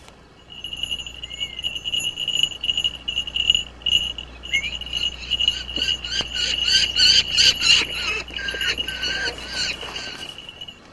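A falcon calling: a shrill, steady high cry, overlaid in the second half by a fast run of sharp repeated cries, several a second, that fades out just before the end.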